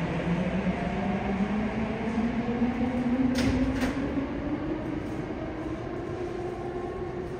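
Subway train standing at the platform with its doors open, its machinery humming with a pitch that rises slowly and steadily, and two short clicks about halfway through.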